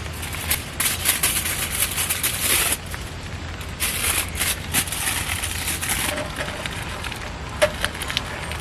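Aluminium foil crinkling and rustling as it is handled, in two long spells, followed by a few light clicks near the end.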